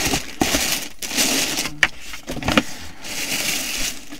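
Packaging rustling and crinkling as it is handled, with a few sharp knocks in between.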